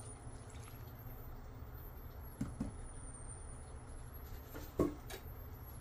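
Low steady background hum with a few soft knocks of dishes set on a table: two about two and a half seconds in, and a louder one near the end.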